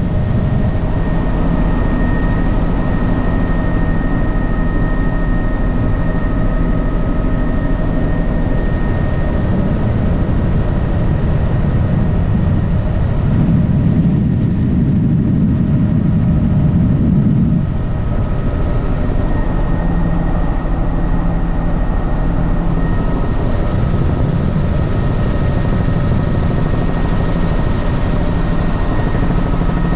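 Helicopter in flight heard from on board: steady, loud rotor and engine noise with a high, steady whine. The low rumble swells for a few seconds about halfway through.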